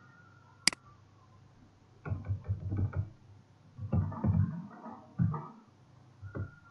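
A single sharp computer-mouse click, then runs of soft, dull computer-keyboard keystrokes in short bursts as a word is typed.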